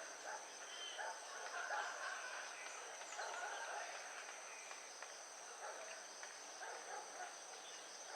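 Steady high-pitched insect trilling, with faint indistinct outdoor sounds underneath.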